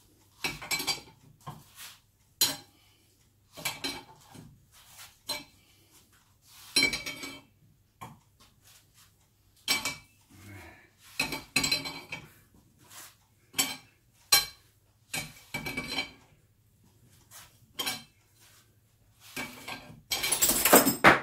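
Metal clicking and clinking from a wrench turning the forcing screw of a bearing puller clamped in a bench vise, in short irregular bursts as a tight bearing is drawn off its shaft. A louder, denser clatter comes near the end.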